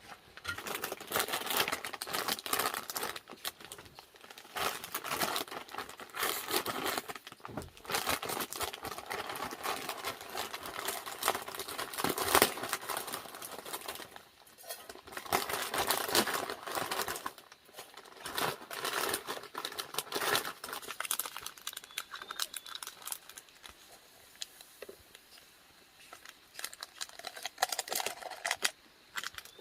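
Crinkling and rustling of something being handled, in stretches of a second or two with short pauses between.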